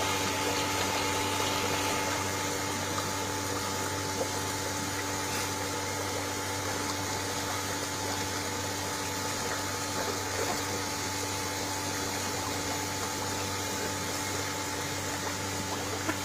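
Koi pond's water pump humming steadily, with a few held tones over an even wash of running water.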